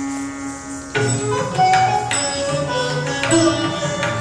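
Odissi dance music: a held note, then about a second in sharp percussion strikes and plucked-string notes come in and continue.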